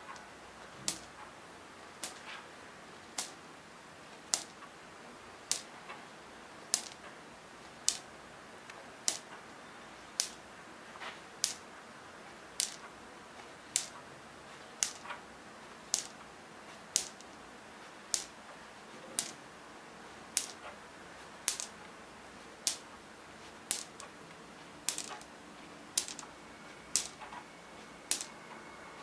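Numbered bingo balls set down one at a time on a hard tabletop, a sharp click a little more often than once a second.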